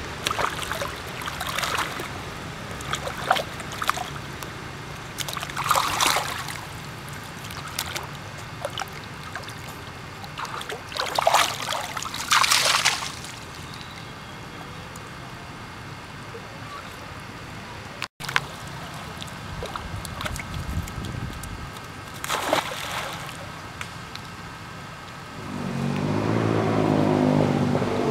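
Monkeys splashing and sloshing as they wrestle and swim in shallow pond water, in several short bursts. A motor vehicle engine hums underneath and grows much louder near the end.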